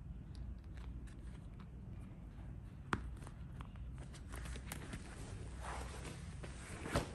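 Small clicks and taps of a plastic air-mattress valve cap being pressed and twisted shut, with one sharp click about three seconds in. From about halfway, the vinyl of the deflated mattress rustles and crinkles as it is handled, and another sharp click comes near the end.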